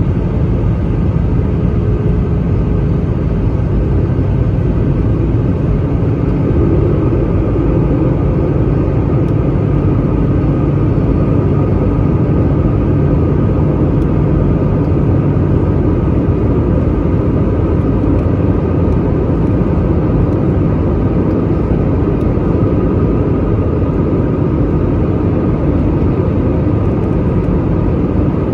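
Airbus A320 cabin noise from a window seat over the wing during the descent: a steady low rumble of the engines and rushing air, with a faint steady high whine over it.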